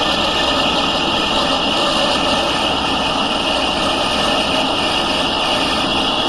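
Smithy lathe running steadily under power with a constant high whine, while a light 5-thousandths turning pass is hand-fed along the workpiece.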